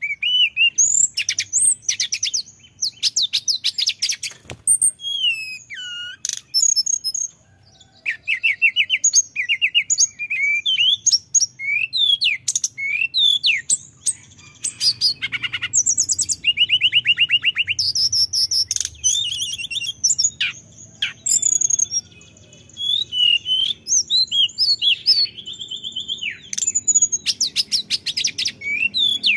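Male hill blue flycatcher singing: a fast, varied run of high whistles, swooping notes and rapid rolling trills in long phrases broken by brief pauses.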